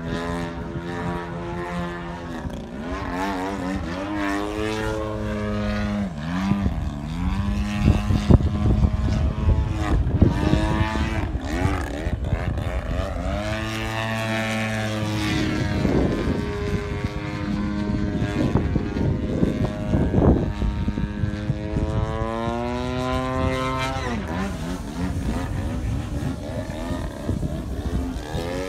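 Engine of a 103-inch Pilot-RC Laser radio-controlled aerobatic plane (GP-123 engine) running in flight, its propeller note rising and falling again and again as the plane manoeuvres, changes throttle and passes by. A few short rough crackles of noise come through around the middle.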